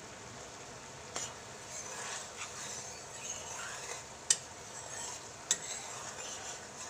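Sugar syrup for gulab jamun boiling hard in a kadai, a steady bubbling hiss, while a spoon stirs through it. The spoon gives a few sharp clinks against the pan, about one, four and five and a half seconds in.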